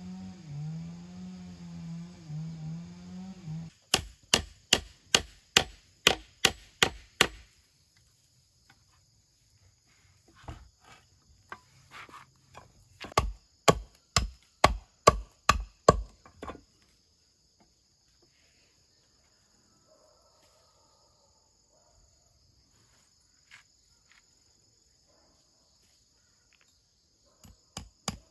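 A machete chopping a wooden stick against a wooden block: two runs of sharp strikes, about three a second, then a few scattered knocks. Insects buzz steadily in the background, and a low wavering hum is heard over the first few seconds.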